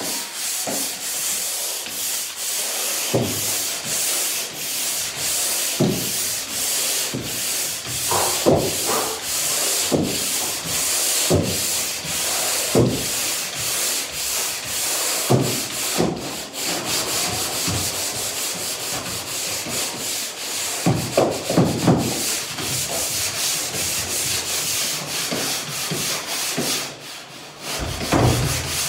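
Drywall pole sander scraping back and forth across a wall in repeated strokes, with occasional short squeaks.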